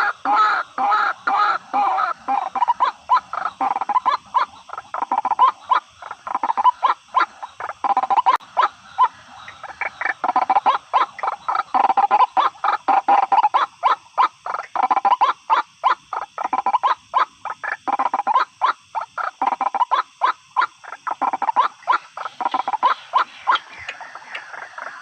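White-breasted waterhen calls: fast runs of repeated notes in bouts of a few seconds, one after another.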